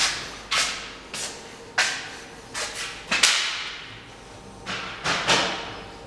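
Footsteps on a bare concrete floor, about two sharp steps a second, each echoing off the hard walls; they stop near the end.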